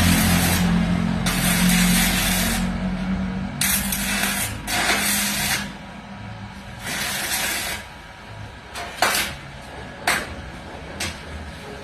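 Welding arc hissing and crackling in five short bursts of about a second each, like a run of tack welds, with a low hum in the first few seconds. Then come four sharp knocks about a second apart.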